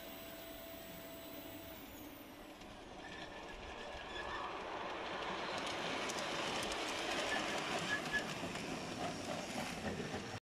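Battery-powered LGB G scale model train approaching and running past on its track. A rising rolling rumble with scattered clicks is loudest about three quarters of the way through, then stops abruptly just before the end.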